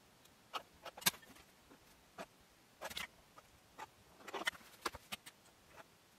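Faint, scattered clicks and scrapes as the hot tip of a soldering iron is drawn slowly along a metal straightedge, cutting and sealing layered velvet and lining on a glass sheet. The strongest click comes about a second in.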